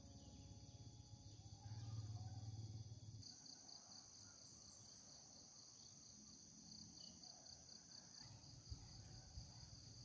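Faint insects chirring in the fields, a steady high pulsing trill, with a low rumble during the first few seconds.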